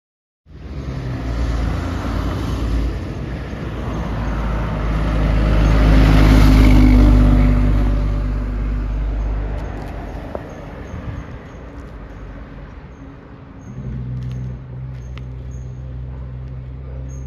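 Fire engine's diesel engine running as the truck drives up and passes by, growing louder to a peak about six seconds in and then fading away, with no siren. A steadier engine hum comes in near the end.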